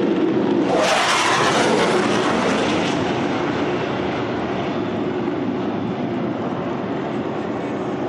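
An IAI Kfir fighter jet's single turbojet engine roaring on a low pass overhead. The roar comes in sharply about a second in, is loudest for the next two seconds, then slowly fades as the jet flies away.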